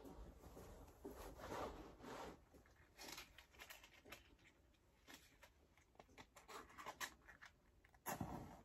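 Faint scratching and rustling of matches being handled and struck to light a wood stove, with a louder scrape of a match head on the box near the end.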